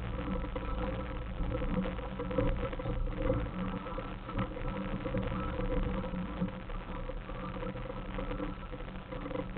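Suzuki Samurai's engine running at low revs while crawling up a rocky off-road trail, with frequent small rattles and knocks throughout.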